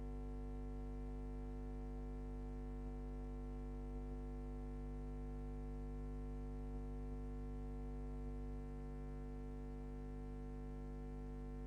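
Steady electrical hum with a stack of even overtones, unchanging throughout and dipping slightly about two-thirds of the way in.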